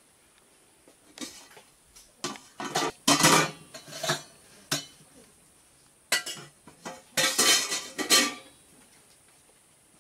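Irregular bursts of clattering. The bursts start about a second in, come in clusters, and are loudest about three seconds in and again around seven to eight seconds.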